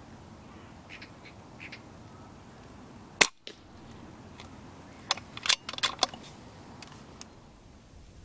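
A single air rifle shot from a Theoben MFR pre-charged pneumatic rifle: one sharp crack about three seconds in. About two seconds later comes a short cluster of fainter sharp clicks.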